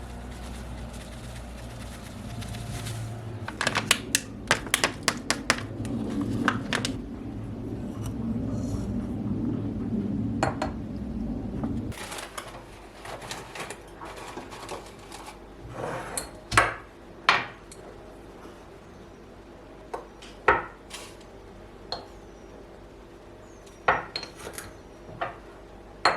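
Dishes and cutlery clinking and clattering as they are handled: a quick run of clatters a few seconds in, then scattered single clinks and knocks. A steady low rumble runs underneath and stops about halfway through.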